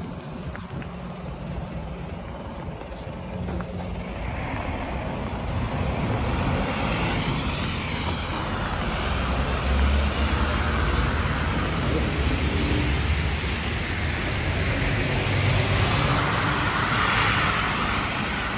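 Road traffic on a slushy, snow-covered city street: vehicles passing, engines and tyres on the wet road, growing louder about halfway and again near the end.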